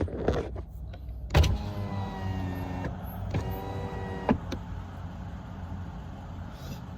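A car's electric power window motor running twice, each time a steady whine of a second or so, the first starting with a sharp click. A low steady rumble from the idling car runs underneath.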